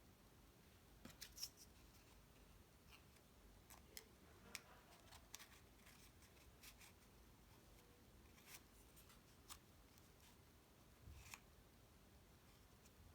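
Near silence broken by faint, scattered clicks and light taps of cardstock pieces being handled and fitted together.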